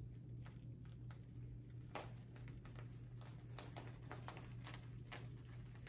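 Clear plastic carrier sheet being peeled off iron-on vinyl after heat pressing, giving faint scattered crackles and ticks. The crackles grow louder and more frequent from about two seconds in.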